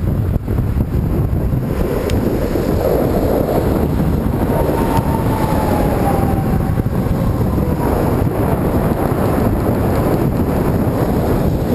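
Wind buffeting the microphone of a camera on a moving bicycle, a steady loud rushing. About halfway through, a faint whine falls in pitch as a vehicle passes on the highway alongside.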